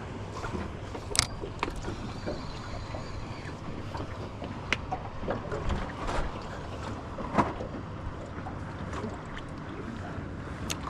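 Water slapping against the hull of a small boat, with wind on the microphone and a few sharp knocks from the boat or fishing gear.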